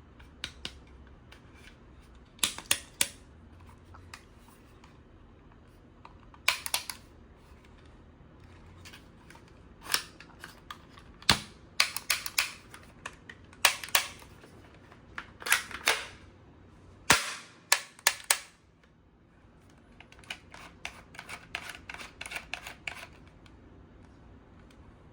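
Sharp plastic clicks and snaps from a toy gun being handled and worked, coming in short groups of one to four with pauses between. Near the end there is a run of fainter, quicker clicks.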